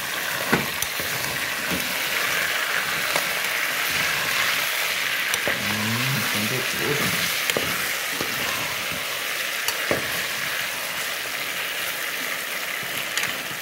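Chicken pieces frying in oil in an aluminium pot, a steady sizzle as the meat's own water cooks off and it begins to fry. A metal spoon stirs the pieces, clicking and scraping against the pot now and then.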